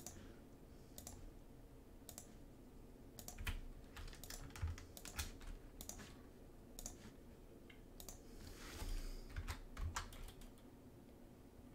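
Faint, irregular clicking of a computer keyboard and mouse, single clicks and short runs of keystrokes.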